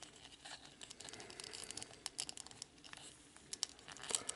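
Faint, irregular clicks and light scraping of hard plastic model-kit parts being handled and pressed together, a piece being pushed at a hole it does not seat into.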